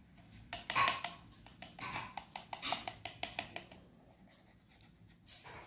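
Hands handling a small plastic glue bottle against a CD on the tabletop: a run of light clicks and scrapes in the first three seconds or so, loudest about a second in, then quieter.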